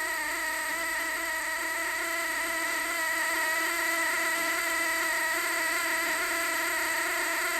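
LarsLap Model G portable valve grinder running, its driven grinding heads turning self-adhesive grinding discs against a gate valve seat under grinding pressure. A steady pitched mechanical hum that grows slightly louder about three seconds in.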